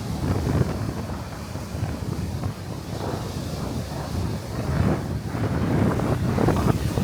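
Strong gusting wind buffeting the microphone, a low, uneven rumble that swells and eases, growing stronger in the second half.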